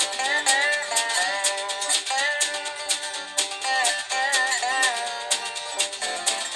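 Background music: an upbeat tune of plucked strings over a steady beat of sharp percussion strikes, with a melody line that bends in pitch.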